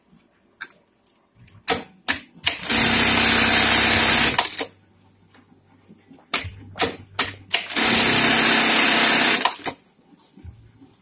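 Juki LK-1900 industrial bartacking machine sewing two bartacks. Each is a burst of rapid stitching lasting under two seconds, with sharp clacks from the machine just before and after it.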